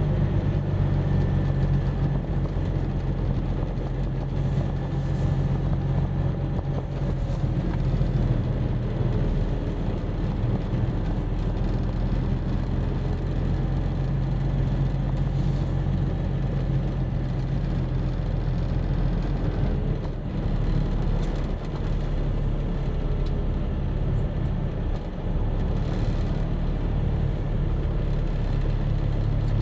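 Semi-truck's diesel engine running steadily while driving down the road, with a low drone and road noise.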